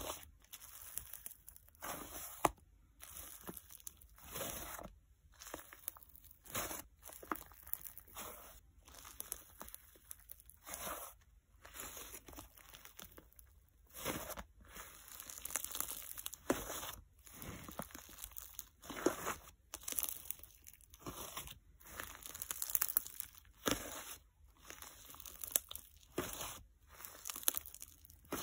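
Soft clay slime being kneaded, fist-squeezed and pulled by hand, giving a run of short squishy crackles about one a second as it is pressed and stretched.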